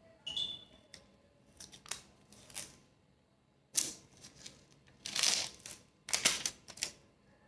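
Security seal strips on an iPhone 11 box being torn and peeled off, in a series of short rips and scrapes with small clicks, the longest and loudest from about five seconds in.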